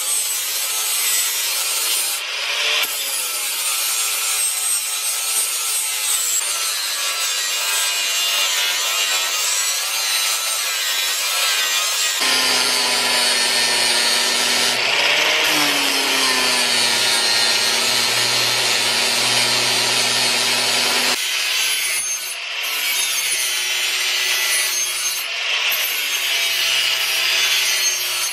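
Angle grinder with an abrasive disc grinding the edge of a steel cleaver blade: a steady, loud grinding hiss over the motor's whine. The pitch and tone change abruptly several times, with a deeper motor hum through the middle.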